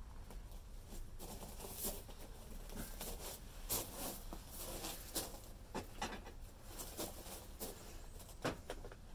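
Handling noises from a metal camping kettle and a glass cafetière: scattered light knocks, clinks and rustles as they are moved and set down, with a sharper click near the end as the cafetière's plunger lid goes on.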